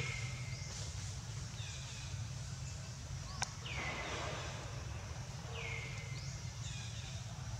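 Outdoor ambience: a steady low hum, with short high-pitched animal calls that sweep downward and repeat every second or two. A single sharp click comes about three and a half seconds in.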